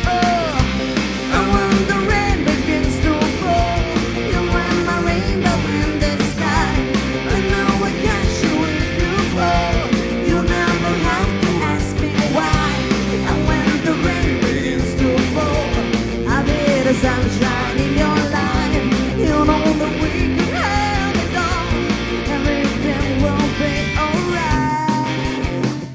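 Live rock band playing: a woman's lead vocal sung over electric guitar, bass guitar and a drum kit.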